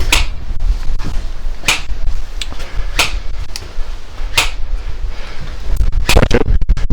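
Airsoft guns firing single shots: about six sharp cracks, spaced a second or two apart, with two close together near the end, over a steady low rumble on the microphone.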